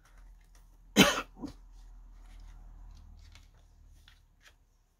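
A man coughs sharply once about a second in, with a smaller second cough just after. Faint paper rustles and light ticks follow as a CD booklet is handled.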